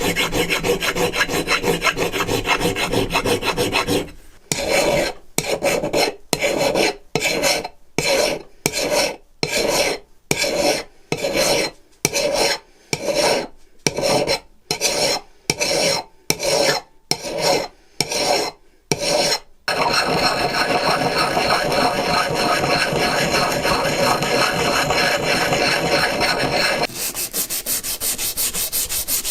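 Hand file scraping back and forth. It starts as a continuous rub, then breaks into separate strokes a little over one a second for about 15 seconds, then goes back to continuous scraping that turns finer and hissier near the end.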